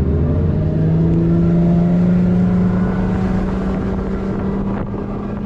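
Bass boat's outboard motor running at speed, its pitch climbing slightly at first and then holding steady, over the rush of wind and water. It grows quieter near the end.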